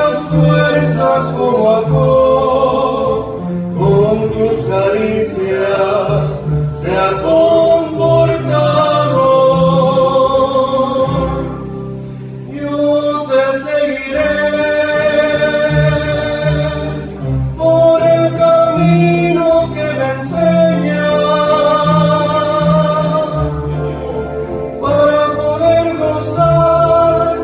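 Two men singing a Spanish-language gospel duet, accompanying themselves on two acoustic guitars.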